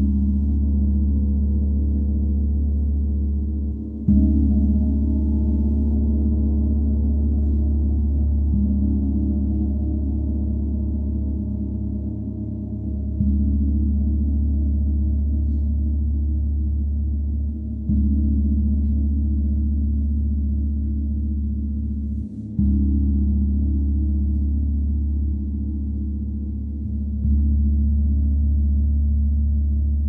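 A 32-inch Paiste Symphonic gong struck six times, about every four and a half seconds. Each strike sets off a deep, sustained ringing that carries on into the next.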